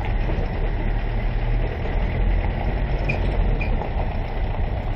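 A vehicle's engine running steadily, a low rumble with road noise.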